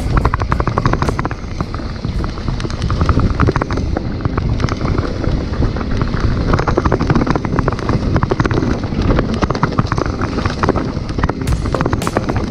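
Dartmoor Blackbird mountain bike riding a rough dirt trail: a constant low rumble from the tyres, with rapid, uneven rattles and knocks as the bike goes over bumps.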